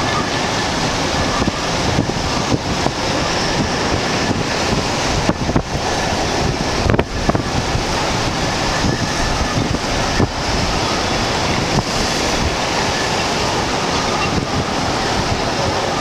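Hurricane-force Bora wind buffeting the microphone in gusts, over storm waves surging and breaking against a harbour quay: a loud, steady rushing noise.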